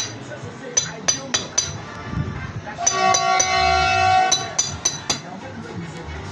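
Sharp ringing clinks, struck in quick runs of three or four about a quarter second apart, with a held pitched tone lasting over a second near the middle.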